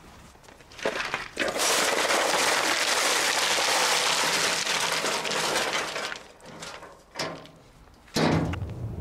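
Cobbles tipped out of a wheelbarrow, a loud rattling rush of stones pouring and clattering for about four seconds. Near the end come two separate knocks.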